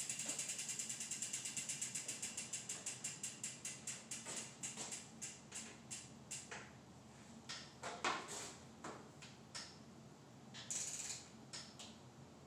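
Rear freehub of an Origin8 Bolt wheel ratcheting as the wheel spins freely: a rapid run of pawl clicks that slows as the wheel coasts down, followed by a few scattered clicks.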